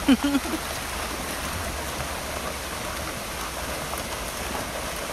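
Paddlewheel aerators churning a fish pond: a steady splashing rush of water.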